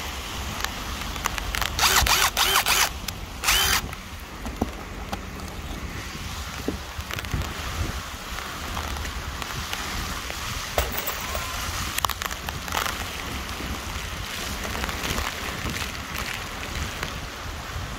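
Stanley V20 cordless impact driver run in a few short bursts about two seconds in, then once more a second or so later, over a steady hiss of rain and wind on the microphone.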